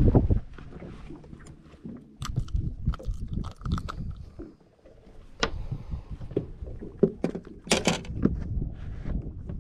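Irregular clicks, knocks and rustles of hands handling a freshly caught speckled trout and working a lure free of its mouth on a fibreglass boat deck, over a low rumble, with a louder cluster of sharp clatter near the end.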